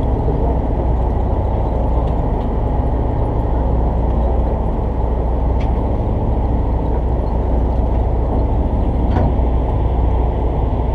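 Steady low rumble of a fishing boat's engine running while the boat holds position for bottom fishing.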